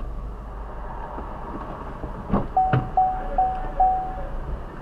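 Steady low rumble inside a car's cabin. A little over two seconds in come two clicks, then four short beeps at one pitch, evenly spaced about 0.4 s apart, like an in-car electronic chime.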